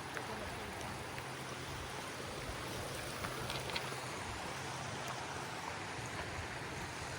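Steady rushing noise with no clear pitch, carrying a faint low hum and a few small ticks.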